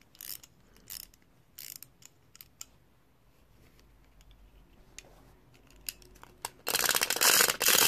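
Wind-up chattering-teeth toy: a few separate ratcheting clicks as its clockwork key is turned, then, near the end, the spring mechanism runs in a loud, fast clatter of clacking plastic jaws.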